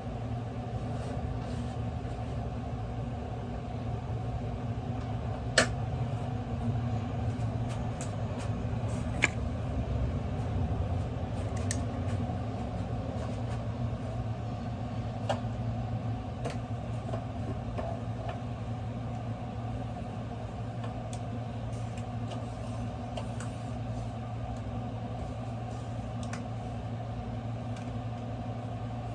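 Steady low machine hum, with a few sharp clicks of parts or tools being handled.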